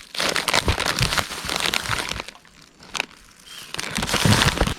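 Soft insulated cooler bag being handled, its fabric and lining rustling and crinkling. There are two spells of rustling with a sharp click between them, about three seconds in.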